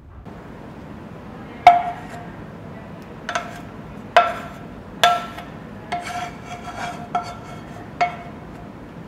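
Cookware knocked together: about ten sharp knocks at uneven intervals, each leaving a short ringing tone of the same pitch, as the last of the cheese sauce is tapped and scraped out of the pan onto the fries.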